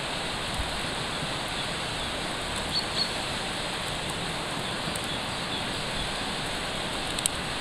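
Wood fire hissing steadily with a few faint crackles, bacon fat dripping from strips roasting on sticks and sizzling in the embers.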